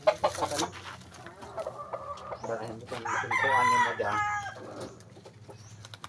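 A rooster crows once, starting about two and a half seconds in and lasting about a second and a half. A few sharp knocks come right at the start.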